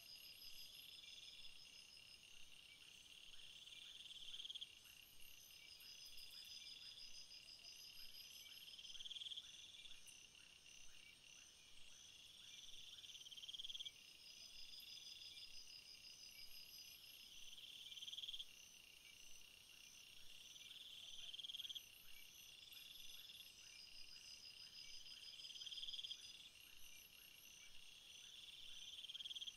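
Faint chirping of crickets or similar insects, in pulsed trills at several high pitches, swelling and then dropping off sharply every four to five seconds.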